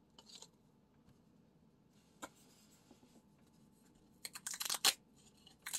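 Paper pull-tab lottery tickets handled and their tabs torn open: a quick run of crisp paper rips and crackles about four seconds in, and more near the end, after a single small click about two seconds in.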